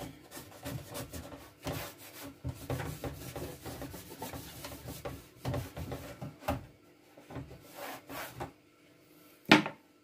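Cotton cloth rubbing over a grill toaster's plastic housing in quick, uneven wiping strokes that stop after about eight and a half seconds. A single sharp knock comes near the end.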